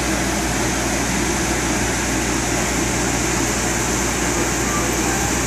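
Steady mechanical drone of a running engine, with a constant low hum underneath, holding an even level throughout.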